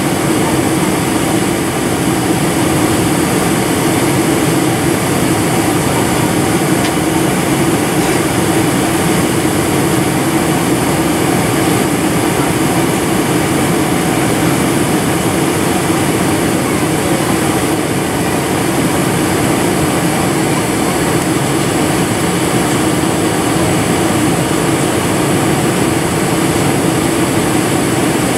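Steady cabin noise of a Boeing 747-400 on landing approach: jet engines and rushing air heard from a window seat over the wing, a constant low drone with a faint high whine above it.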